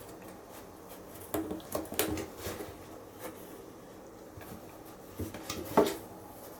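A cat swatting with its paw: light knocks and brushing scrapes in two flurries, the loudest knock near the end of the second.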